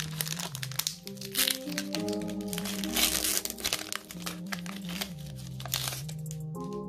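Foil Pokémon booster pack wrapper crinkling as it is opened by hand and the cards are slid out, with the loudest crinkles about a second and a half in, around three seconds in, and near the end. Background music plays underneath.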